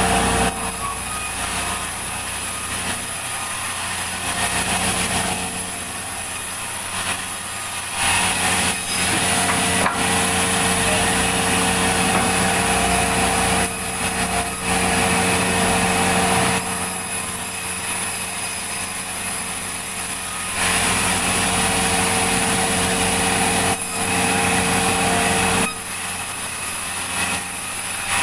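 Sawmill running as a log is sawn: a steady machine hum with the saw working through the wood, growing louder for stretches of a few seconds at a time, three times.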